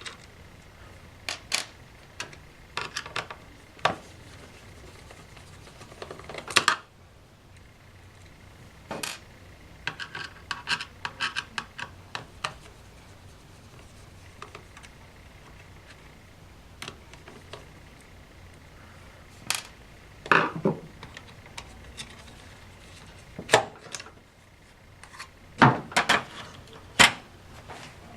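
Scattered clicks, taps and small clatters of plastic and metal as an Asus U50F laptop is taken apart by hand with a Phillips screwdriver, at the stage of pulling out the hard drive. The clicks come irregularly, with a few louder knocks near the middle and toward the end.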